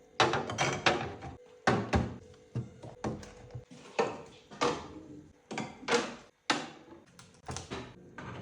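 Irregular clunks and knocks, two or three a second, of food containers being set down and refrigerator drawers and shelves being handled, over a faint steady hum.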